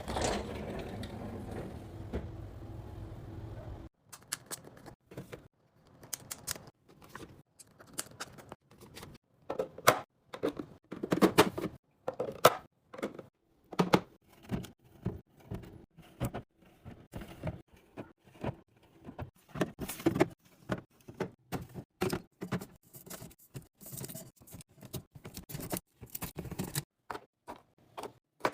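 Groceries and containers being handled and set down: a quick, uneven run of clicks, taps and knocks. For the first four seconds there is only a steady noise with a faint hum.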